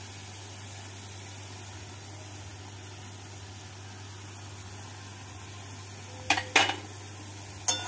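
Chicken and masala sizzling faintly in a wok, a steady soft hiss over a low hum. Three sharp knocks near the end.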